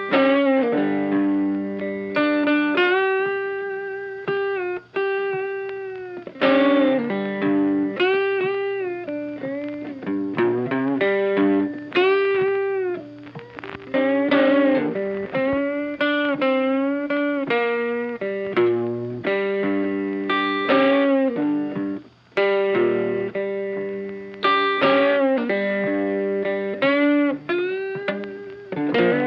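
Background music: a guitar, with an electric, effects-laden tone, playing a melodic line of notes that bend and slide in pitch.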